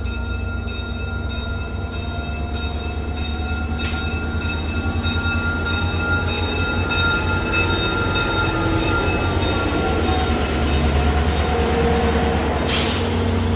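VIA Rail F40PH-2D diesel locomotive, its EMD 16-cylinder two-stroke engine under power, accelerating away from a station and passing at close range: a heavy low engine rumble with a steady high whine over it. A short loud hiss comes near the end.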